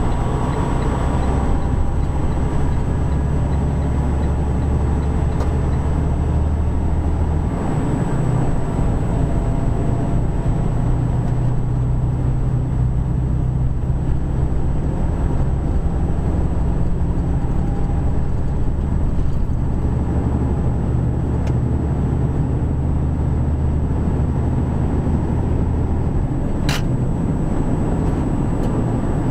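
Semi truck engine and road noise heard inside the cab while cruising on the highway: a steady low drone.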